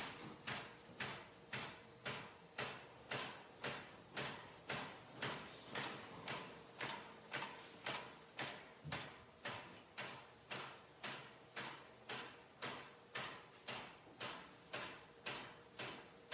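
Automatic bobbin winding machine running, giving a faint, regular mechanical clack about twice a second.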